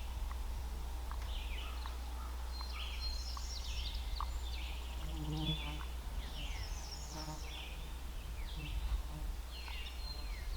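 Songbirds singing and calling, with many short chirps and trills sliding up and down, over a steady low rumble.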